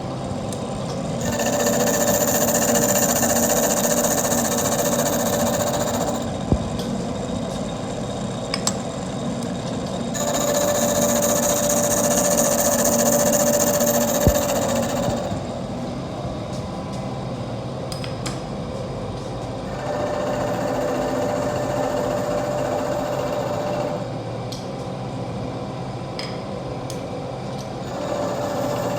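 Milling machine running, with louder stretches of several seconds where the cutter works the metal and a high whine rises over the machine noise, four times in all. A few sharp clicks fall between them.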